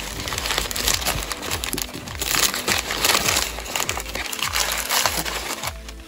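Brown kraft packing paper and crinkle-paper shreds rustling and crackling steadily as they are pushed and pulled about, easing off near the end.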